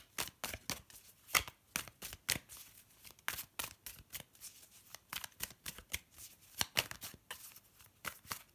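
A deck of tarot cards being shuffled by hand: a quick, irregular run of papery flicks and snaps, several a second.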